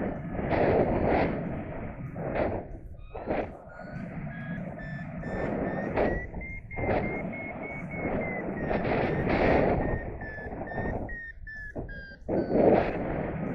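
Paragliding variometer beeping in lift: a quick run of short beeps that climbs in pitch, then falls back and stops near the end. It plays over wind rushing and gusting across the microphone.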